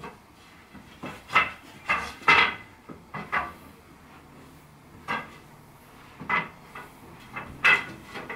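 Wooden slats of an IKEA Luröy slatted bed base clattering and knocking against each other and the bed frame as the base is handled and laid into place: about ten short knocks at uneven intervals.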